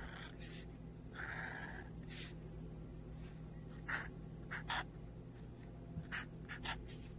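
Felt-tip marker drawing lines on paper: a run of short scratchy strokes, one longer stroke about a second in and several quick ones near the end.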